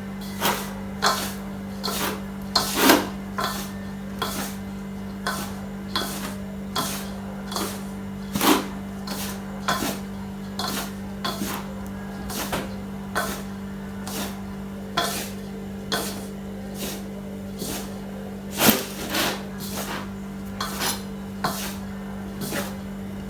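Flour and margarine being mixed in a bowl for chips dough: short scraping clinks against the bowl, about two a second, over a steady low hum.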